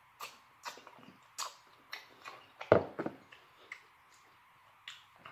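Mouth sounds of chewing buttered lobster tail meat close to the microphone: irregular wet smacks and clicks, the loudest about three seconds in.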